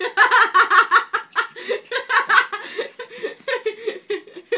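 A person laughing in quick, choppy bursts, loudest in the first couple of seconds, while a puppy play-bites a hand.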